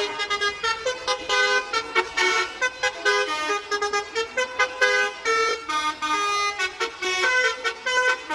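A bus's multi-trumpet 'telolet' air horn playing a quick melody of short horn notes at changing pitches, with brief breaks between phrases.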